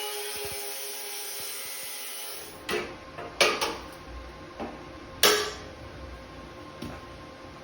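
A power tool's whine dying away, followed by a handful of sharp knocks and clunks from metalworking on the sheet-metal base.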